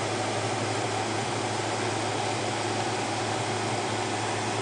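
A Macintosh LC475 running with its case open: a steady whir and hum from its cooling fan and spinning hard drive.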